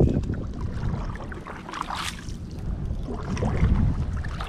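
Kayak paddle strokes and splashing as the kayak is pushed and turned through thick pond weeds, with a low rumble under it and a sharper splash or scrape about two seconds in.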